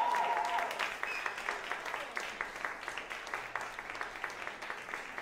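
Audience applauding, with a few cheering shouts in the first moment. The clapping is dense at first and slowly grows thinner and quieter.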